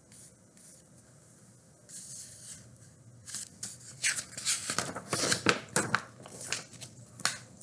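Paper pages of a picture book crackling and rustling as the book is handled and a page is turned. It starts softly about two seconds in, then becomes a dense run of sharp crinkles from about three seconds in until near the end.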